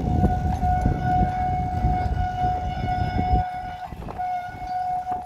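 A cable-hauled Great Orme Tramway tramcar passes, its steel wheels giving a steady high-pitched squeal on the rails that breaks briefly near the end. A low rumble lies under it and stops about three and a half seconds in.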